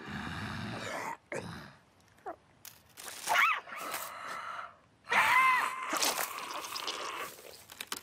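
Cartoon sound effects: rustling, noisy swishes and short knocks, with two squealing cries from the animated characters, one about halfway through and a louder one a little later.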